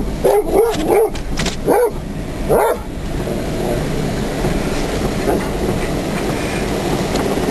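A dog barks about five times in the first three seconds. Then comes the steady noise of a car driving slowly, heard from inside the cabin.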